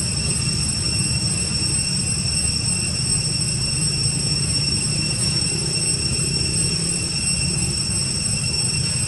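A steady, unbroken high-pitched insect drone with overtones over a constant low rumble.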